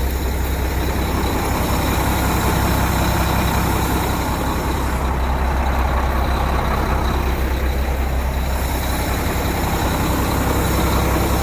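Semi truck's diesel engine idling with a steady hiss of escaping air: an air leak that the owner puts down to the cab's air-suspension dump valve, with the suspension dumped.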